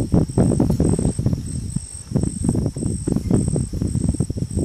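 Insects chirping in a steady high pulsed rhythm, about two to three pulses a second, over a louder low rumbling, crackling noise.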